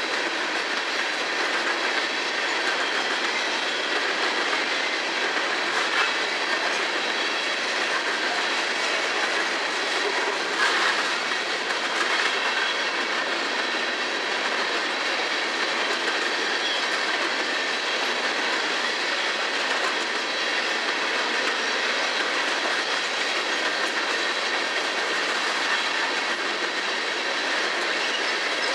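Empty coal cars of a freight train rolling past: a steady clatter of steel wheels on rail with clickety-clack over the joints and a faint steady high squeal. A few sharper knocks stand out in the first half.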